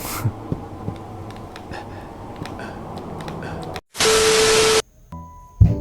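Background room noise with a few faint clicks, then a cut to a short loud burst of hissing static with a steady beep-like tone. Piano music starts just after it.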